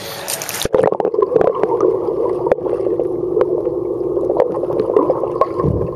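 Water splashing, then under a second in the sound turns dull and muffled as the microphone goes under the surface of a swimming pool: a steady underwater hum with scattered sharp ticks and bubbling.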